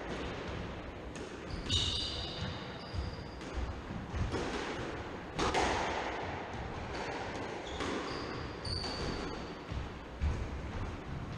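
Squash court sounds: sharp knocks of the ball and footfalls, the loudest about five seconds in, with short squeaks of court shoes on the wooden floor about two seconds in and again near eight to nine seconds, all echoing in the enclosed court.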